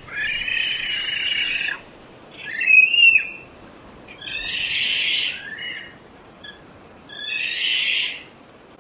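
A bird giving a series of four harsh, raspy calls. Each is about one to two seconds long, with short pauses between them.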